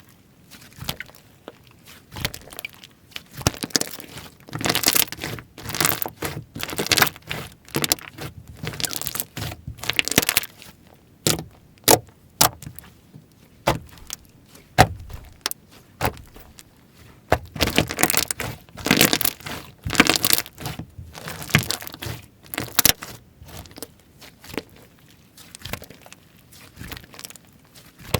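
Slime being squeezed, stretched and poked by hand, giving off irregular crackling and popping clicks in bursts of activity.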